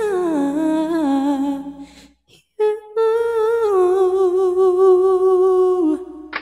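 A young man's solo voice singing long drawn-out notes into a handheld microphone. A wavering phrase slides down in pitch, breaks off for a breath about two seconds in, then gives way to one long held note with light vibrato that stops near the end.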